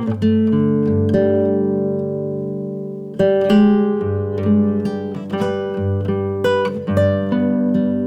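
Background music: an acoustic guitar picking notes, with a held chord ringing out and then a quicker run of plucked notes from about three seconds in.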